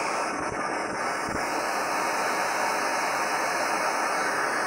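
Fire-Maple X3 canister gas stove burner alight and running: a steady hiss of burning gas.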